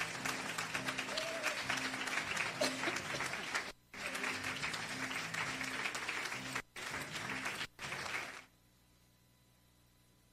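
Audience applauding over music, the applause dropping out briefly three times before cutting off suddenly about eight and a half seconds in, leaving only a faint low hum.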